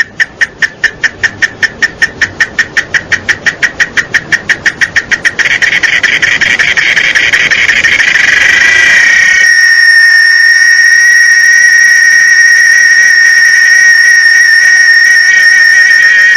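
Cicada singing: a series of rapid pulses, about five a second, that speed up and merge into a continuous buzz about five seconds in, then settle into a steady high-pitched whine about nine seconds in.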